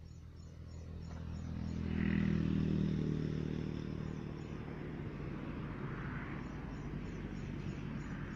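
An engine running off-camera, growing louder over the first two seconds and then holding at a steady hum.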